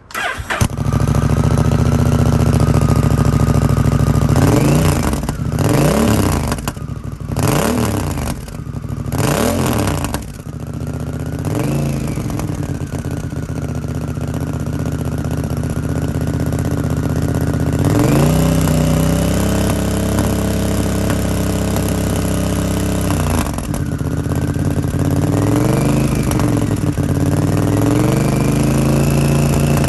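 Honda Rebel 1100's parallel-twin engine running through a cheap Chinese-made aftermarket muffler quietened with an inner silencer. It idles, is blipped on the throttle five times in the first twelve seconds or so, then is held at higher revs for about five seconds, with one more blip near the end.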